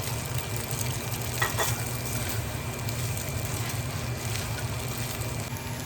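Chow mein noodles and fried egg sizzling in a hot pan as they are stirred together, with a couple of sharper utensil scrapes about one and a half seconds in.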